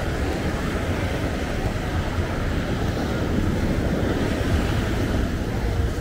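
Steady rushing of ocean surf breaking on the beach, with wind buffeting the microphone.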